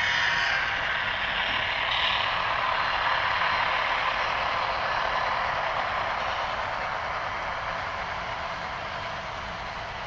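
Model diesel locomotive in BNSF livery rolling past, pulling autorack cars. A steady noise with no clear tone, loudest in the first few seconds as the locomotive goes by, then slowly fading as the cars follow.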